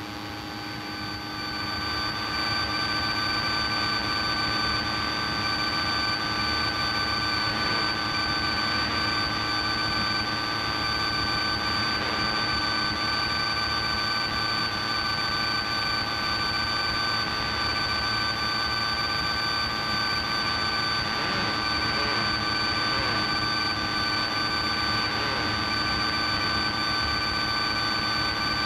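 Piper Cherokee's piston engine and propeller droning steadily in flight, heard inside the cabin. It swells over the first two seconds, then holds an even pitch.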